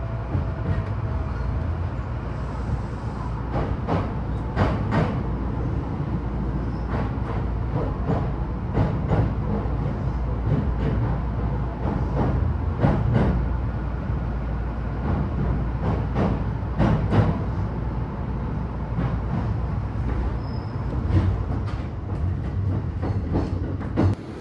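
Jōban Line rapid commuter train running at speed: a steady low rumble, with the wheels clicking over rail joints in quick pairs every few seconds.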